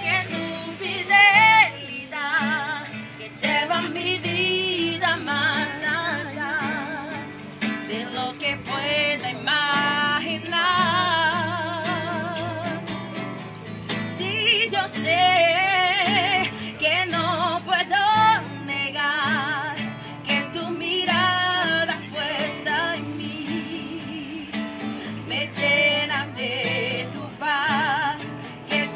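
A woman singing with a wavering vibrato, accompanying herself on acoustic guitar.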